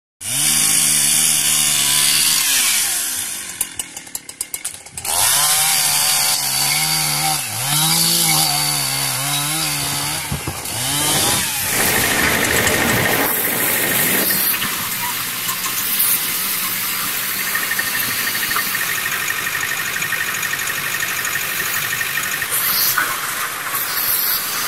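Two-stroke chainsaw revving up and down as it cuts logs. It drops back to a lower idle for a moment a few seconds in, then runs at a steadier high speed through the second half.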